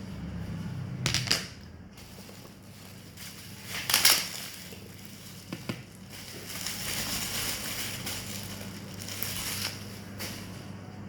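Packaging being handled and crumpled: crinkling and rustling, with sharp clacks about a second in and again, louder, about four seconds in, and a longer rustle in the second half. A low electrical hum runs underneath.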